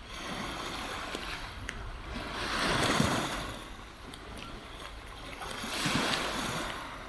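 Small waves washing up on a sandy beach, the surf swelling twice, about three and six seconds in.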